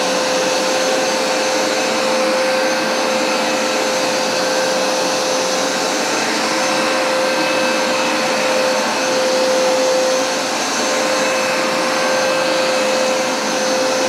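Hoover SmartWash Pet upright carpet cleaner running steadily as it washes carpet: an even rush of suction with a steady mid-pitched whine.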